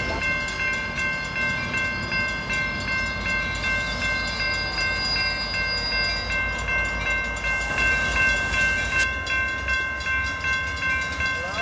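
Railroad warning bell ringing steadily, a rapid repeating bell tone, over the low rumble of a Metrolink commuter train's diesel locomotive arriving at the station.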